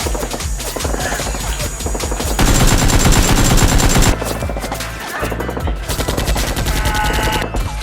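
Rapid bursts of machine-gun fire sound effects over background music, loudest about a third of the way in.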